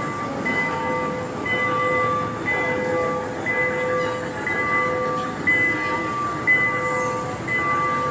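Trackless mall kiddie train ride passing, its sound system playing a looping electronic train tune: short steady notes that repeat about once a second over a background hum.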